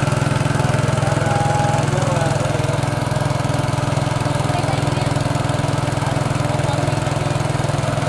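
A small wooden river boat's engine running steadily at constant speed, a fast, even chugging with no change in pace.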